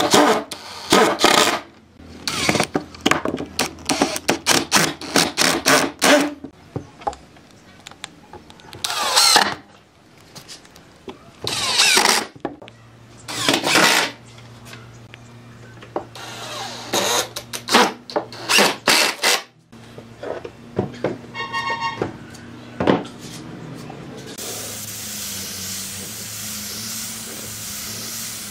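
Power tool worked in many short, irregular bursts, then a brief tone near 22 seconds, and from about three-quarters of the way through a steady hiss.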